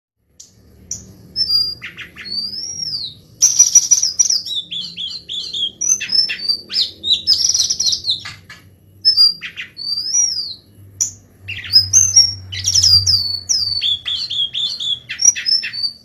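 Srikatan kerongkongan songbird singing a fast, varied song of sharp chirps, rising-and-falling whistles and quick runs of descending notes, with only brief pauses.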